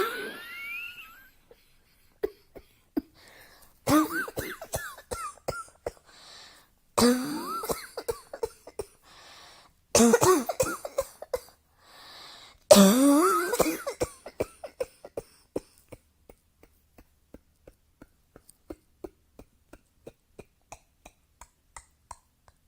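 A person coughing in four harsh bouts about three seconds apart, each cough trailing off into a voiced sound that shifts in pitch. These give way to a run of faint clicks, about two a second.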